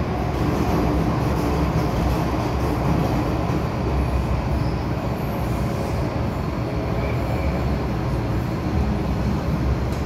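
Steady running noise of an MTR M-Train heard from inside the passenger car in a tunnel: a continuous rumble of wheels, running gear and rushing air, with no sudden events.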